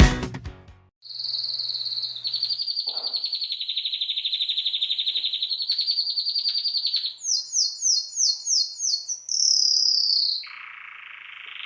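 Canary singing: a long rapid trill, then about seven quick downward-sweeping notes, a briefly held whistle, and a lower buzzy roll near the end.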